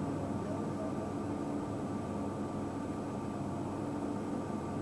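Steady mechanical hum: several steady low tones over a low rumble, unchanging throughout.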